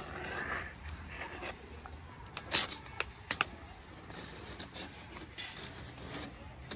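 Pencil scratching lines on plywood along a plastic straightedge, with several sharp clicks and taps as the strip and pencil are handled, the loudest a quick cluster a little over two seconds in.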